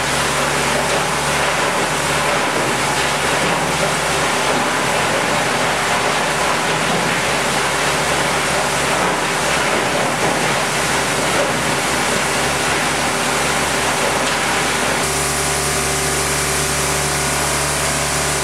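Dreher S 34/52 SRV plastic granulator (cutting mill) grinding a plastic purge lump, a loud steady grinding rush from its rotor knives chopping the material under heavy load. About fifteen seconds in the sound changes to a steadier machine hum with clear tones.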